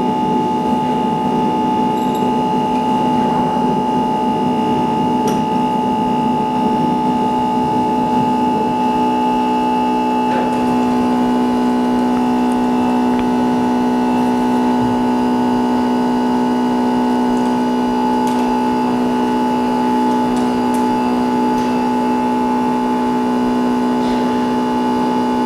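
Steady electric machine drone with a constant pitched hum, from the screen-separating machine running while the glass is being worked off the OLED panel. A few faint light clicks sound over it.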